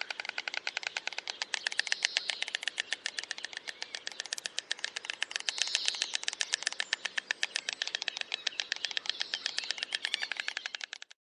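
Stork clattering its bill: a fast, even rattle of sharp clacks, more than ten a second, swelling and easing in waves and stopping abruptly near the end.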